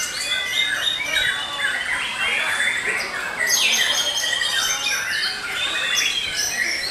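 Several caged white-rumped shamas (murai batu) singing at once. Their fast, varied phrases overlap in a dense, unbroken tangle of whistles sliding up and down and rapid trills.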